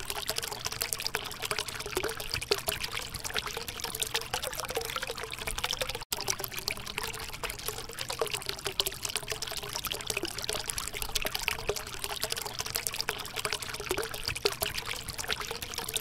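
Small homemade tabletop waterfall fountain: thin streams of water falling and trickling steadily into the water in its basin, with a momentary break about six seconds in.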